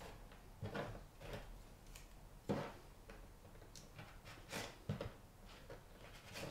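Faint, irregular taps and clicks of a small knife on a wooden chopping board as dried vanilla beans are cut into short pieces.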